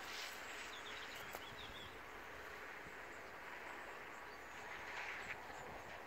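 Faint outdoor field ambience: a steady hiss with a few brief high bird chirps about a second in.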